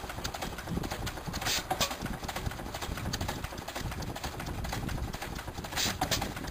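Vintage stationary engine running, a fast, steady clatter of knocks and clicks from its moving parts, with louder sharp beats about one and a half seconds in and again near the end.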